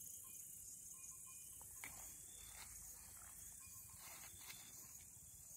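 Near silence: a faint, steady high-pitched chirring of crickets, with a few soft faint sounds in the middle.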